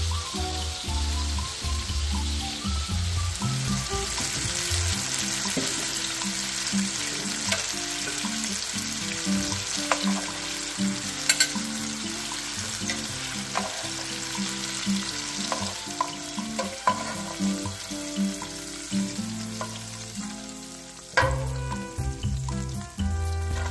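Chicken thighs sizzling as they fry in a frying pan, with metal tongs clicking against the pan as the pieces are turned, over background music. The sizzle comes in a few seconds in and fades near the end.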